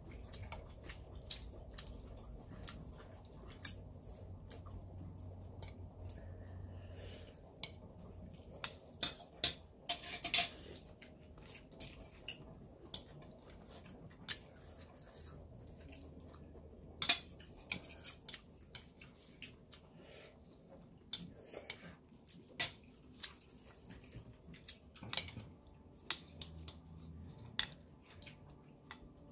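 Chopsticks and a ceramic soup spoon clinking and tapping against a ceramic bowl of noodle soup as the noodles are stirred and lifted, giving scattered sharp clicks at an irregular pace.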